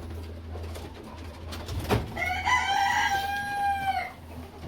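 A rooster crowing once: a single long call of about two seconds, beginning about two seconds in, just after a sharp knock. A low steady hum runs underneath.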